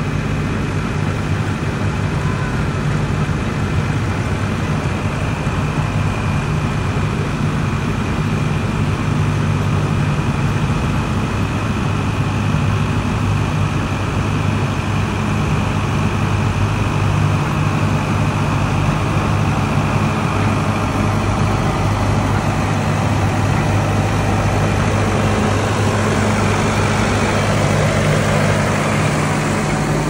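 Oil-fired X-class steam locomotive of the Nilgiri Mountain Railway standing in steam: a steady low hum with a hiss of steam over it, the hiss growing louder near the end.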